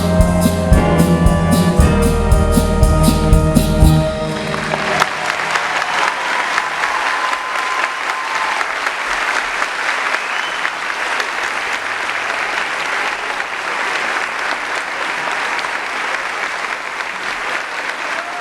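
A live band's music with a steady drum beat ends abruptly about four seconds in, followed by an audience applauding steadily.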